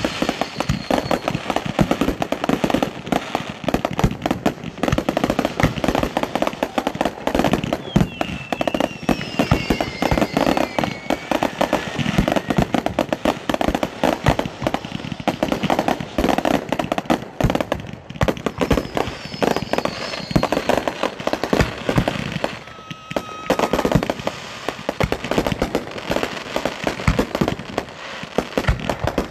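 Professional fireworks display in a dense, unbroken barrage: aerial shells and ground-fired devices going off in rapid succession, a constant run of bangs and crackling.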